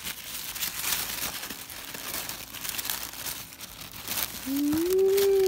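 Tissue paper crinkling and rustling as it is unfolded by hand. About four and a half seconds in, a person's drawn-out 'ooh' rises and falls in pitch over it and is the loudest sound.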